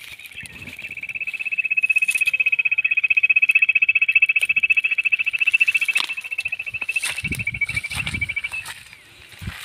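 Battery-powered electronic quail caller playing a fast, even, high-pitched trill that runs on unbroken, dips slightly in pitch and stops about eight and a half seconds in. Some rustling thumps follow near the end.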